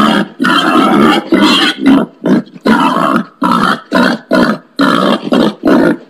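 Wild pig grunting over and over in a quick series, about two rough grunts a second, the later ones shorter.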